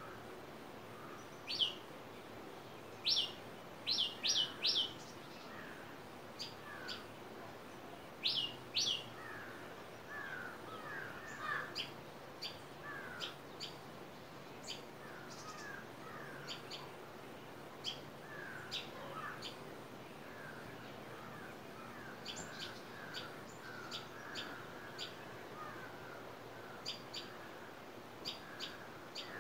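Early-morning birdsong from several birds. Sharp, high, downward chirps are loudest in the first several seconds, some in quick runs of three or four, over softer, lower slurred calls.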